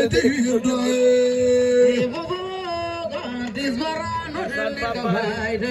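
Singing, a voice holding long notes of about a second or more and gliding between them, with music.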